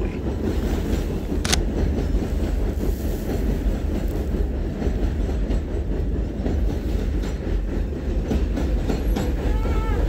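Elevated subway train rumbling along the steel tracks overhead, a steady low rumble with a single sharp click about a second and a half in.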